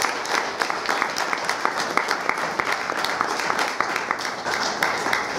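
Audience applauding: many hands clapping together in a steady patter.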